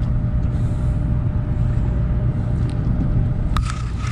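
Fishing boat's engine running steadily with a low rumble, with a few short clicks near the end.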